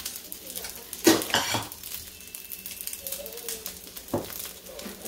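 Cooked rice frying in oil in the cups of a bánh khọt pan, sizzling and crackling steadily as it crisps into cơm cháy. A metal spoon clinks against a bowl a few times, loudest about a second in.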